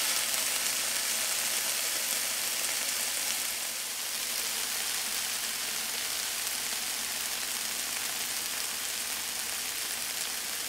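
Mushrooms, lemongrass and chili sizzling in oil in a frying pan: a steady hiss that gets a little quieter about four seconds in.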